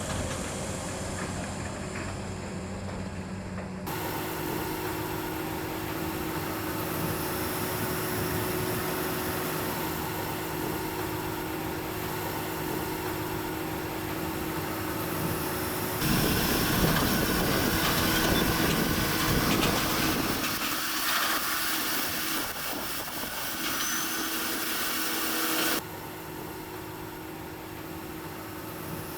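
Tractor and Vermeer 604S Premium round baler running under load, a steady mechanical noise with a constant hum. The sound changes abruptly three times, loudest in a stretch after the middle.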